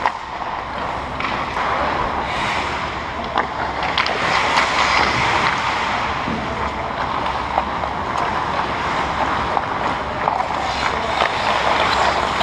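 Ice hockey skates scraping and carving the ice, with scattered sharp clacks of sticks and puck.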